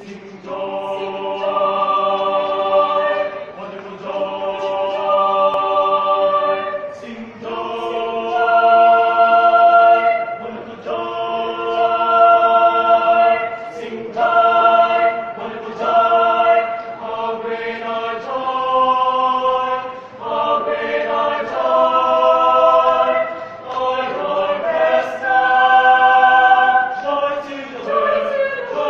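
A choir singing in several voice parts, holding sustained chords in phrases of about two to three seconds with brief breaths between them.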